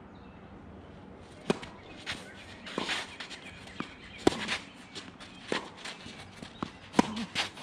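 Tennis rally on a hard court: sharp racket-on-ball hits and ball bounces, the three loudest about a second and a half in, just after four seconds and at seven seconds, with fainter clicks between them. Shoes scuff and shuffle on the court between the shots.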